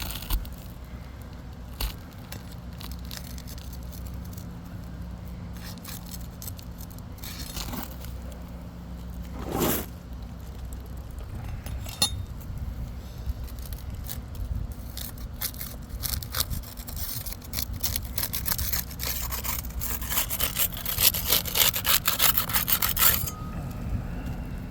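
Scraping and rubbing on a hard surface with scattered clicks and knocks over a steady low hum. About three-quarters of the way through comes a run of rapid rasping strokes lasting some four seconds.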